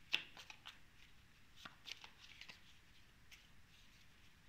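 Faint, scattered flicks and taps of a deck of tarot cards being handled and shuffled in the hands, with the sharpest click right at the start.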